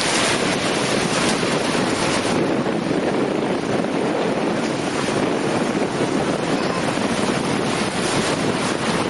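Sea surf washing in, mixed with strong wind blowing across the microphone: a steady rushing noise.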